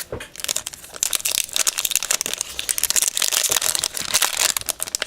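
Foil Yu-Gi-Oh booster pack wrapper being torn open and crinkled by hand, a dense run of crackling.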